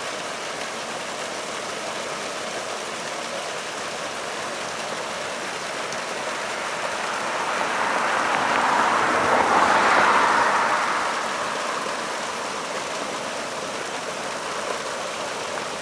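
A vehicle passing: its noise swells up over a few seconds to a peak just past the middle, then fades back into a steady background hiss.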